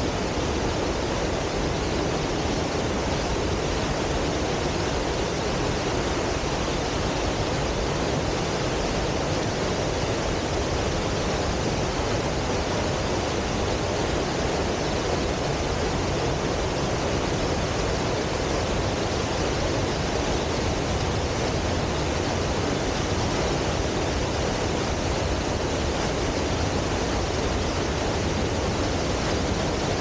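Dry Falls, a high waterfall on the Cullasaja River, pouring in heavy flow: a steady, unbroken rush of falling water.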